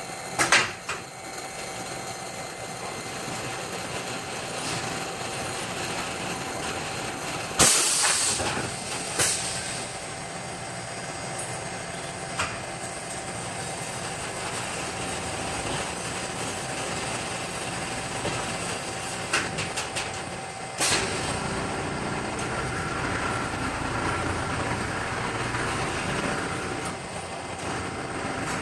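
Steady running noise of a moving vehicle, with several sharp clanks, the loudest about eight seconds in and another about twenty-one seconds in.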